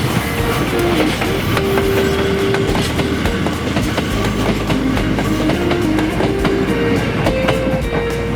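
Hakone Tozan Railway electric train running through, its wheels clicking over the rails, under background music with a stepping melody.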